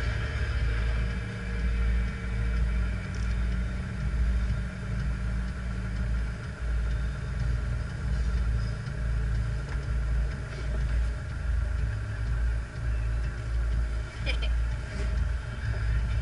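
Off-road vehicle engine idling steadily, with uneven low rumbles of wind on the microphone.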